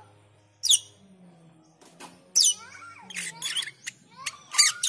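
Asian glossy starling calling: two sharp whistles sweeping steeply down in pitch, about a second and a half apart, then a quick run of short chattering notes.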